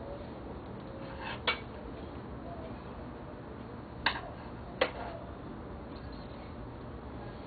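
Three sharp clinks of small hard objects knocking together, one about a second and a half in and two more close together just past the middle, over a steady low hum.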